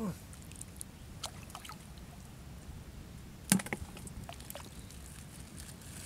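Handling noises: scattered light clicks and taps, with one sharper knock about three and a half seconds in and a brief falling squeak at the very start, over a low steady background noise.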